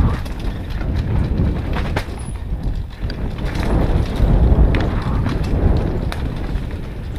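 Mountain bike riding fast down a rough, rocky dirt trail: a steady low rumble with irregular clicks and knocks as the tyres hit stones and the bike clatters, loudest over the roughest stretch a few seconds in.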